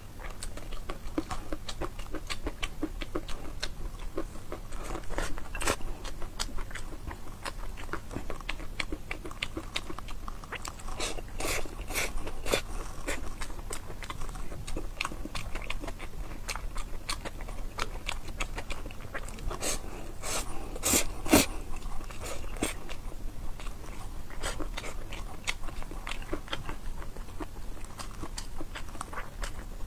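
Close-miked eating sounds of a person biting and chewing noodles: a steady run of small wet mouth clicks, with denser, crunchier clusters about eleven and twenty seconds in. The loudest single click comes about twenty-one seconds in.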